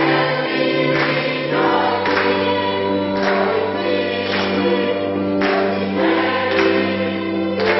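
Choir singing a gospel song in sustained chords, with a regular accent about once a second that keeps the beat.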